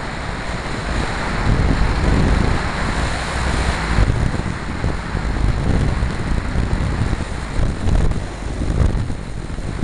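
Airflow rushing and buffeting over the microphone as a weight-shift microlight trike glides on final approach with its engine off, giving a loud rumble with no engine note. The hiss eases about four seconds in.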